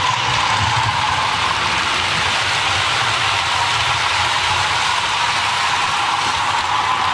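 Model trains running on a layout: a steady mechanical drone with a low hum that holds even throughout.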